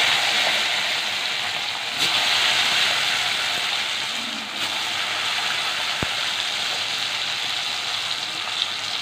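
Slices of kakrol (spiny gourd) sizzling in hot oil in a kadai, a dense steady frying hiss. It swells suddenly about two seconds in and again a little past halfway.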